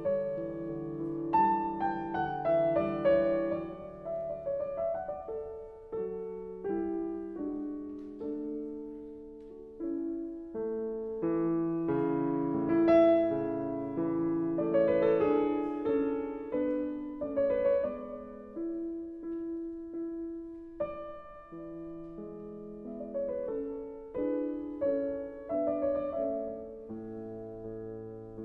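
Piano music: single notes and chords struck and left to fade, at a slow, even pace.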